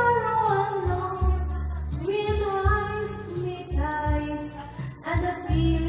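Background music: a song with a high voice singing a gliding melody over a deep bass line.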